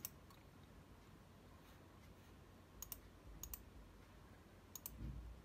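Faint, sharp clicks of a laptop's pointer button, four of them: one at the start, then three more from about three seconds in, each a quick double click of press and release. A soft low thump comes near the end.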